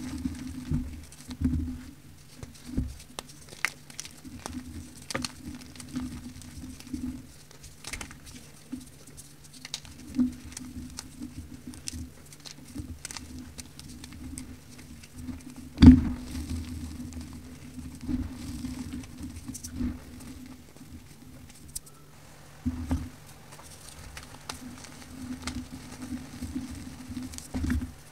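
Crunchy powder bars crumbled and rubbed by hand: many small crackles and soft patters as powder and grains sift through the fingers. One sharp, louder crack comes about halfway through.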